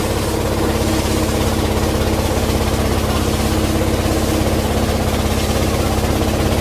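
A small engine running steadily with a fast, even chugging pulse under a constant hum.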